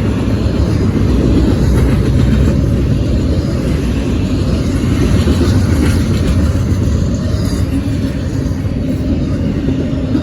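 Norfolk Southern freight train rolling past at close range: a steady, heavy low rumble of wheels on rail, with faint clicks on top.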